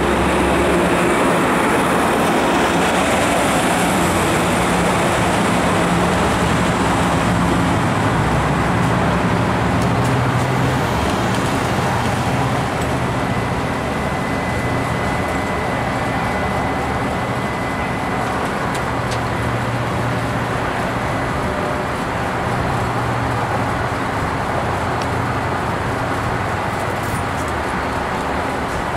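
Amtrak Pacific Surfliner train departing, hauled by an F59PHI diesel locomotive: a steady loud rumble of the engine and bilevel cars rolling over the rails, fading gradually as the train pulls away. A thin high squeal sounds for a few seconds about halfway through.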